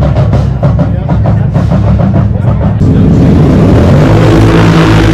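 A pack of race ATV engines running at the start line, revving in quick blips, then holding a steady high rev from about three seconds in.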